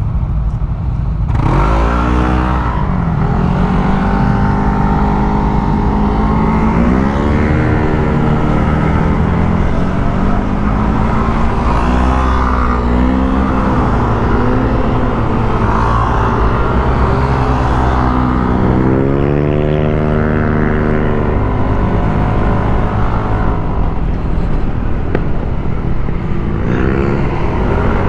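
Motorcycle engine under way, its pitch rising and falling several times as the throttle opens and closes, over a constant low rumble.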